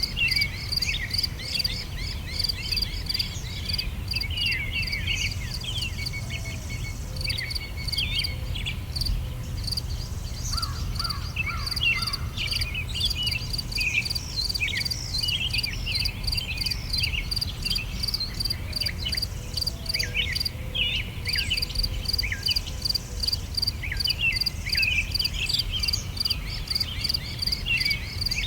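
Summer daytime ambience: many small birds chirping in quick, short notes over a steady, rapidly pulsing chirr of crickets, with a low rumble underneath. The cricket pulsing drops out briefly about a third of the way in and again about two-thirds of the way in.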